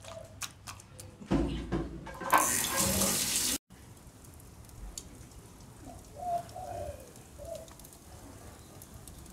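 Wet squelching clicks of hands working marinated chicken wings in a steel bowl, then a kitchen tap running hard into the sink for about two seconds, cut off abruptly. After that it is quieter, with a dove cooing a few times.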